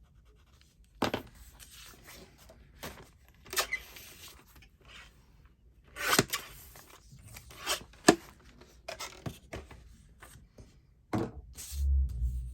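Paper being trimmed and handled: a series of sharp snips and crisp paper rustles, several seconds apart. A low thump comes near the end.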